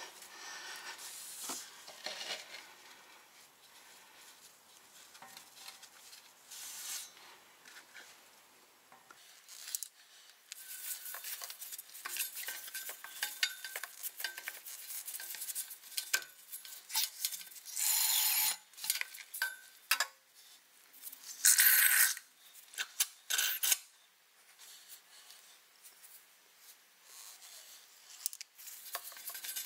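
Handling noise from a plastic fluid bottle being worked against the transfer case of a Porsche Macan: irregular clicks, knocks and scrapes of plastic on metal, with two louder, longer rasping bursts about two-thirds of the way through.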